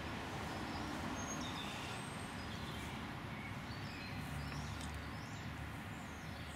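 Faint birds chirping and calling in short high notes over a steady low outdoor rumble.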